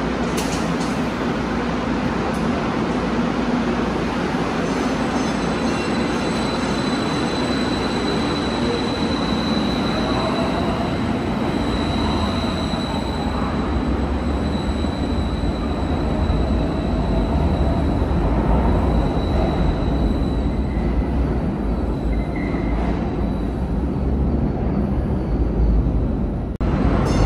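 St. Louis MetroLink light rail train running on the track: a steady rumble with a thin high whine held through the middle. The sound changes abruptly shortly before the end.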